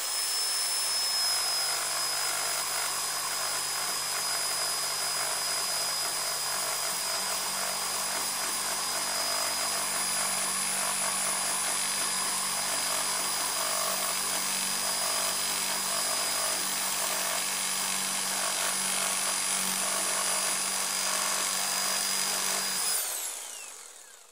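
Electric jigsaw running steadily with a high motor whine. Near the end it is switched off and the whine falls in pitch as the motor winds down.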